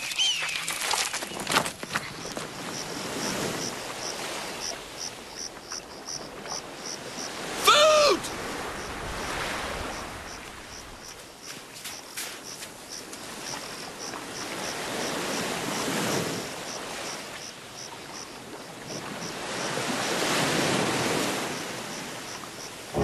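Surf washing on a sandy beach, the waves swelling and ebbing, with a faint regular high ticking about twice a second beneath. About eight seconds in, a single short, loud cry whose pitch bends.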